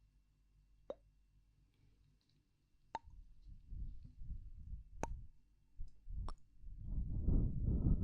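Close-miked ASMR sounds: four short, soft pops spaced a second or two apart, with a low, muffled rubbing noise right on the microphone that builds up and is loudest near the end.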